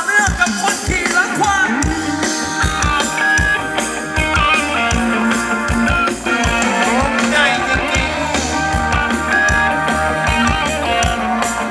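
Live Thai luk thung band music for ramwong dancing, with a steady drum beat under a melody line.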